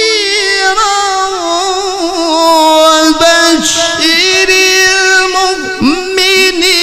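A qari's high male voice, amplified through a microphone, sustains a long melismatic note in chanted recitation style. The pitch is held with vibrato and ornamental turns, and dips and swoops a few times.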